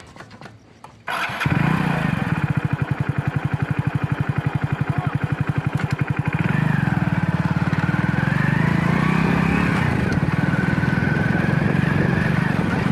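Hero Splendor motorcycle's single-cylinder engine starting with a few clicks and catching about a second in, then running with an even pulsing beat. From about six seconds it runs steadier, with a whine that rises and falls in pitch.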